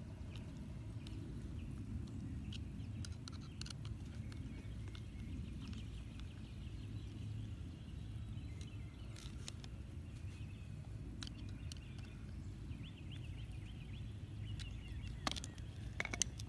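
Faint small clicks and creaks of a screwdriver driving screws by hand into a plastic skimmer basket, over a steady low outdoor rumble. Two sharper knocks near the end.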